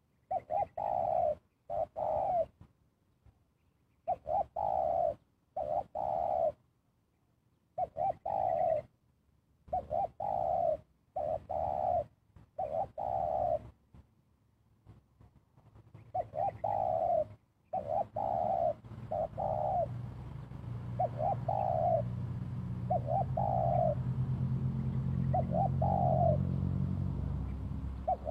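Spotted dove cooing: short coos repeated in groups of two or three, the two-note "kuk dua" call. From about 16 seconds in, a low steady hum rises beneath the calls.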